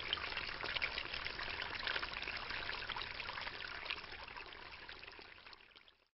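Water splashing and trickling in a shallow tub of koi, with many small splashes, fading out over the last two seconds.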